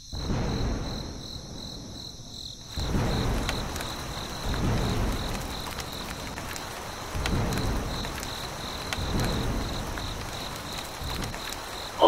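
Thunderstorm ambience: steady rain that grows heavier about three seconds in, with several low rolls of thunder, over a constant pulsing chirp of crickets.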